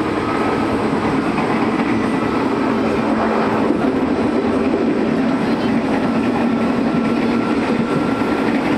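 Steady running noise inside the carriage of an electric commuter train (KRL) travelling at speed, with a faint high whine that comes and goes.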